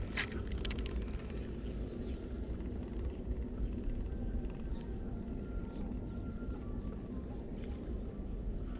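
Insects trilling in a steady, high, continuous tone over a low rumble, with two short clicks near the start.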